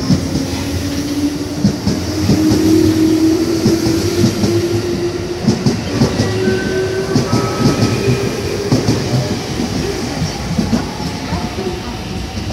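JR West 221 series electric train accelerating past at close range: the whine of its DC traction motors rises in pitch over the first few seconds and then holds, over the clatter and rumble of the wheels on the track.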